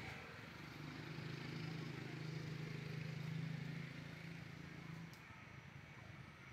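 A low, steady engine hum that starts about a second in and stops abruptly about five seconds in, over faint outdoor background noise.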